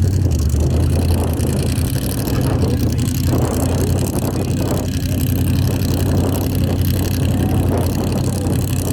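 Formula Offroad hill-climb race truck engine running, a steady low-pitched engine sound with no big rise or fall in pitch.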